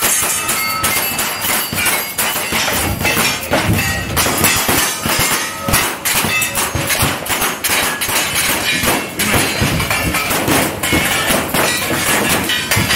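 Rapid gunfire from lever-action rifles and single-action revolvers, shot after shot in quick strings, with steel targets ringing as they are hit.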